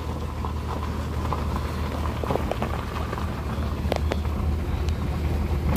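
Car engine running steadily in first gear, heard from inside the cabin, with tyres crunching over a gravel road and small stones ticking now and then.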